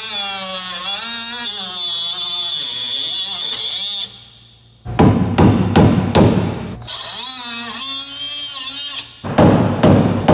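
Power cutting tool cutting through a rusted, stripped shock absorber mounting nut. Its motor whine sags and recovers in pitch under load, with a hiss of grinding over it. After a short break about four seconds in, the cut goes on in choppy, stuttering stretches.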